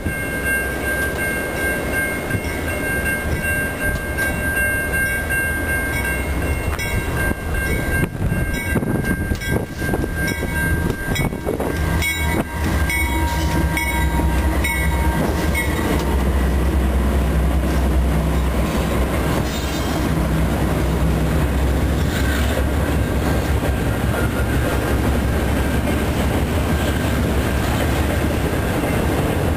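CN diesel-hauled freight train approaching and passing close by. The locomotives' engines are loudest around the middle, then the freight cars keep rolling past.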